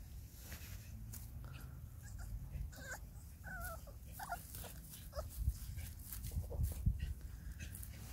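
Young puppies whimpering: a few short, wavering whines close together about three to four and a half seconds in, among scattered rustling and small knocks.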